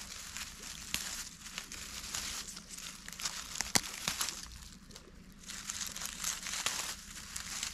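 Dry grass and dead leaves rustling and crackling as a hand works through a clump of wild greens and pulls at them, with one sharp click about four seconds in.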